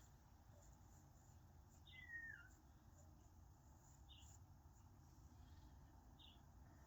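Near silence: quiet room tone, broken about two seconds in by one faint, short chirp that falls in pitch, and a few faint high ticks.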